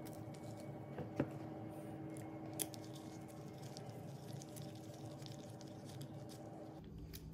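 Small hand-handling noises as a screw with a washer is fitted through a fog light pod's bracket into its plastic locking nut, with two sharp small clicks about one and two and a half seconds in, over a steady low hum.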